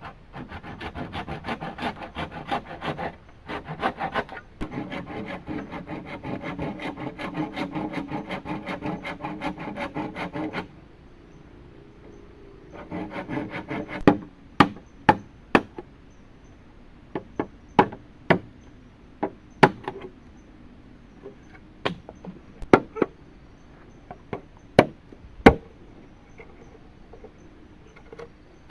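Bamboo being cut with a hand saw in rapid rhythmic strokes for about ten seconds, then briefly again. After that come sharp single chops or knocks on wood, roughly one a second.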